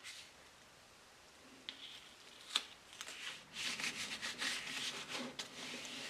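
A small hand block rubbed back and forth over masking tape laid on a piece of wood veneer: quiet handling rustles and a single click, then from about three and a half seconds a steady run of scratchy rubbing strokes.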